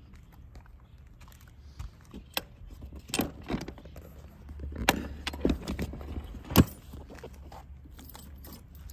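Hinged seat of a Kawasaki 250TR Bison being handled and lowered shut: a run of clicks and knocks with keys jangling, and one sharp clack about two-thirds of the way through.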